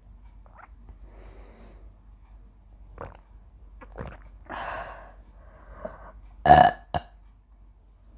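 A woman burping several times from a litre of pomegranate juice. A longer burp comes about four and a half seconds in, and the loudest, a short sharp one, about six and a half seconds in, with a brief one right after.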